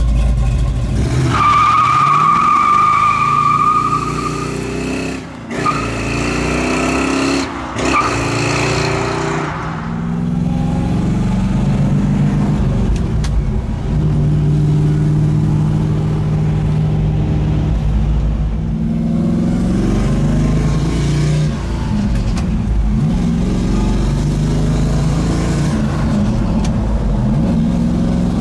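A 1968 Chevelle's 396 big-block V8 revving and pulling through the gears of its four-speed manual, the engine pitch rising and dropping again at each shift. A high squeal sounds about a second in and lasts a few seconds.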